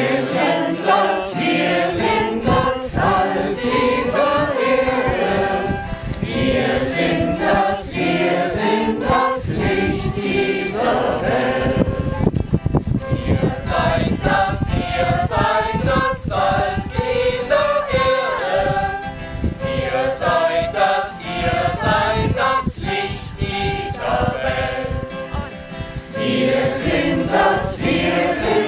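Mixed choir of men and women singing a hymn, with an acoustic guitar strummed along.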